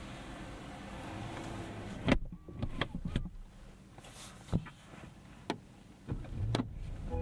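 Rolls-Royce Ghost car door shutting with a solid thump about two seconds in, after which the steady outside noise drops away. A handful of sharp clicks follow from inside the cabin.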